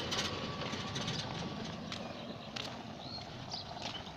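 Outdoor background noise: a steady hiss and rumble that slowly grows quieter. In the last second or so a few faint, short bird chirps sound.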